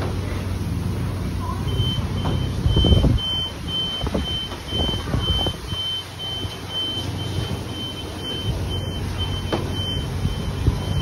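Self-serve car wash foam brush scrubbing over a soaped car body, over a steady low hum. From about two seconds in, a high electronic beep repeats about twice a second.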